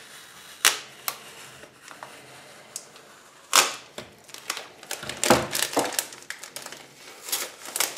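Plastic packaging crinkling and crackling as a Lego polybag is handled and pulled free of a magazine cover. The sharp crackles come irregularly, the loudest about three and a half seconds in and a cluster between five and six seconds in.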